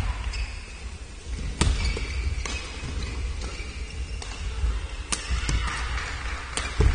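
Badminton rackets striking a shuttlecock during a doubles rally: sharp, brief clicks a second or more apart, with a low thud near the end.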